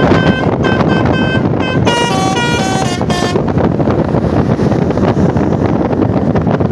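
A tour bus's 'telolet basuri' musical air horn playing a fast tune of short, stepping notes for about three and a half seconds, then stopping, over a loud steady rumble of wind and traffic noise that carries on alone.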